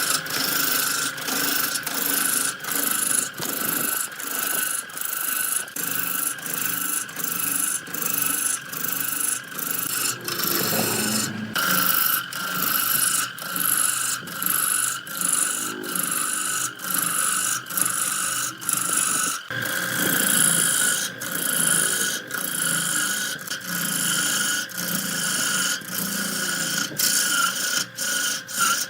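Tool scraping or rasping wood in regular strokes, about one and a half a second, over a steady high machine whine, typical of wood being shaped on a running lathe.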